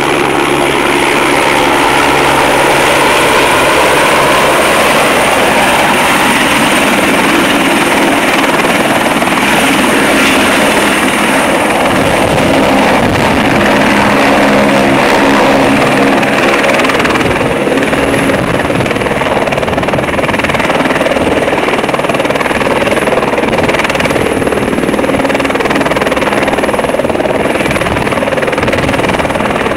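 Airbus AS350 helicopter hovering low and close: steady, loud rotor and turbine noise, with a thin high whine over it.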